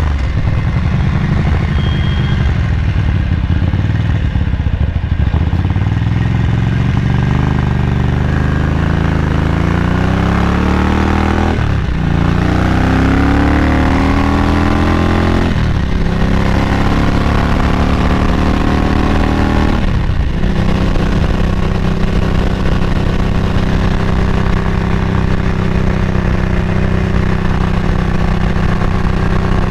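1978 Ducati 900's air-cooled V-twin engine pulling through the gears under acceleration. The engine note climbs, drops briefly at each of three upshifts about four seconds apart in the middle, then holds steady at cruising speed.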